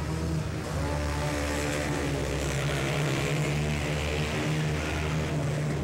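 Several racing ATV engines running together in a steady drone of overlapping engine notes.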